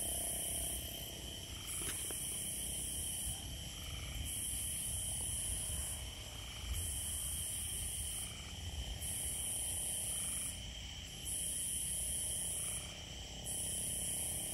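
Night insect chorus: a high-pitched buzzing that pulses on and off every second or so over a steady, lower trill, with a low rumble underneath.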